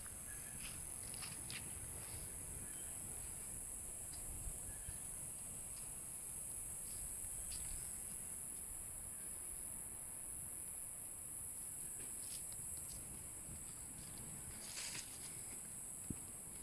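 Steady high-pitched chorus of insects, with a few short chirps scattered over it.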